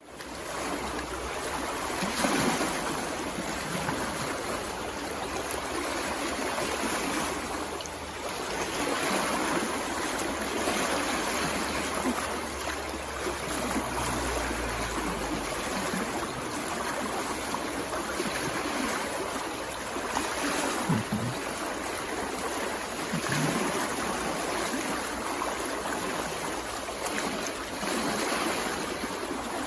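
Small stream of water running and gurgling, a steady rushing noise with small swells. A low rumble sits under it for the first half.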